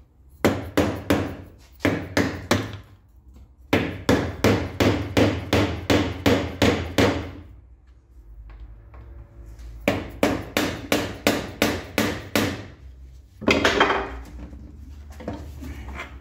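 A hammer striking repeatedly in several runs of quick blows, about three a second, with short pauses between the runs. It is being used on a seized fitting on the air compressor's pressure tube to work it loose.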